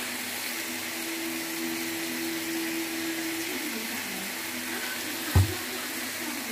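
Chicken and vegetables sizzling in a frying pan, a steady hiss with a low hum under it, and a single thump about five seconds in.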